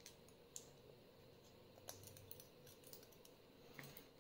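Near silence with a few faint, sharp clicks of small metal lock parts, as the pins and springs of a Lockwood euro cylinder are taken out one by one.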